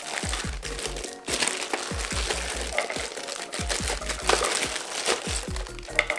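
Thin plastic bag crinkling as a full face snorkel mask is handled and unwrapped from it, over background music with a deep bass beat.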